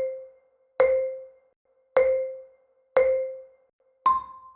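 Countdown sound effect: short mallet-like pings at about one a second, each dying away quickly, then a single higher ping near the end.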